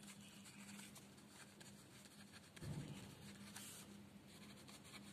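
Pen writing on paper, faint scratching strokes, over a low steady hum.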